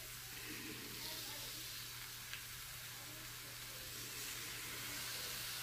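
Trout and red drum fillets frying in a skillet, a steady sizzling hiss as lime juice is squeezed over them. A single faint click a little past two seconds in.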